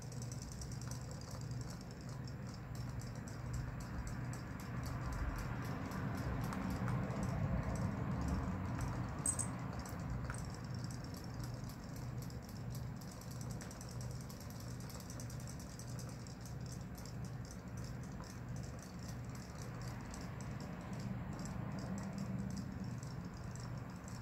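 Battery-powered robotic fish toys swimming in a plastic basin of water, their small tail motors giving a fast, steady ticking buzz over a pulsing low hum, a little louder for a few seconds near the middle.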